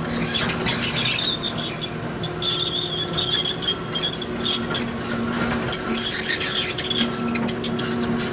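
2001 Kobelco SK330LC excavator at work: a high metallic squealing that comes and goes, over the hum of its Mitsubishi six-cylinder turbo diesel, with rapid clanking throughout.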